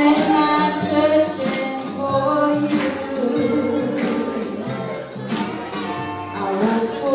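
Live music performance: a singing voice over instrumental accompaniment, with a regular accent about every second and a quarter.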